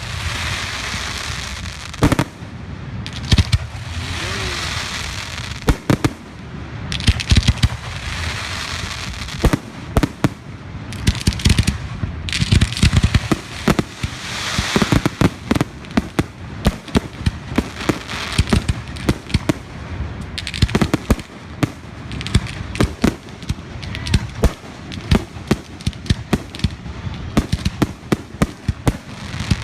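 Fireworks going off in a rapid, continuous barrage: many sharp bangs and cracks, several a second at times, over a crackling hiss that swells and fades.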